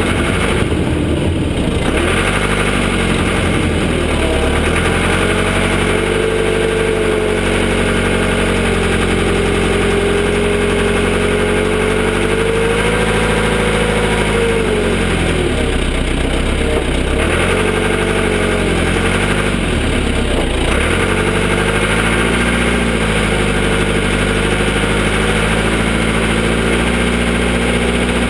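Cat 416 backhoe loader's diesel engine running steadily, its pitch dipping and rising several times as it works under varying load.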